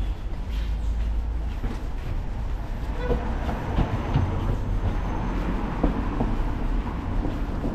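A heavy vehicle passing with a low rumble and a rapid clattering, growing louder from about three seconds in.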